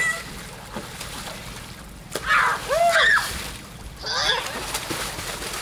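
Water splashing and sloshing in a small inflatable pool as people play in it, with children's high-pitched shouts a little over two seconds in, near three seconds and again around four seconds.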